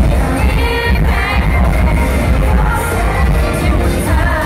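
A K-pop boy band's song is playing loudly over a concert sound system, with a heavy bass beat and sung vocals, and the audience cheering along.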